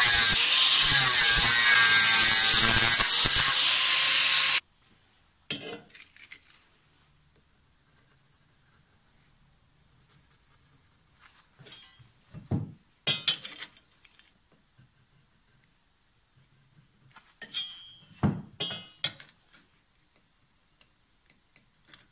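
Angle grinder cutting steel, loud and steady, stopping abruptly about four and a half seconds in. After that, scattered short knocks and scrapes as a steel bar and a metal square are handled on a wooden board.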